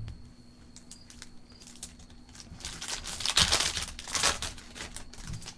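A foil trading-card pack wrapper being torn open and crinkled, the rustling tearing starting about two and a half seconds in and lasting about two seconds. A few faint taps of card handling come before it.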